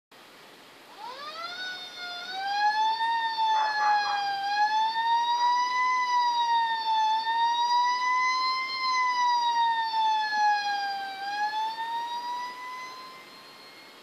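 Fire truck siren wailing: it rises in pitch about a second in, then slowly wavers up and down for several seconds before fading out near the end.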